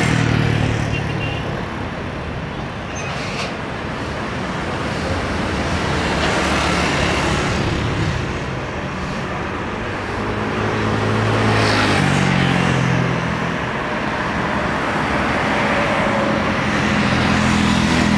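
Steady engine roar that swells and fades in waves, with a deeper engine hum strongest near the start, about eleven seconds in and near the end.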